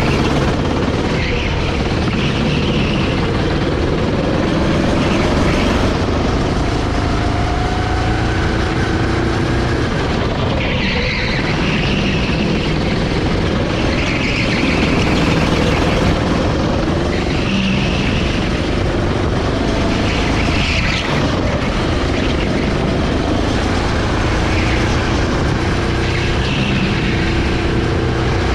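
Rental go-kart's 390 cc four-stroke single-cylinder engine heard from on board, its note rising and falling with the throttle through the corners and straights, over a steady rushing noise.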